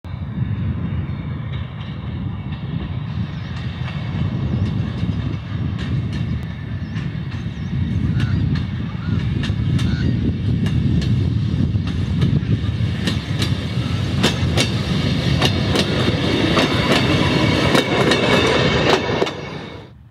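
Comeng motorised rail trolley running along the track with a steady engine rumble. Its wheels click over the rail joints, the clicks growing louder and more frequent as it draws near. The sound cuts off suddenly just before the end.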